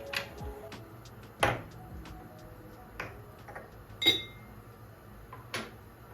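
Kitchenware being handled: a few separate knocks and a ringing, glassy clink about four seconds in.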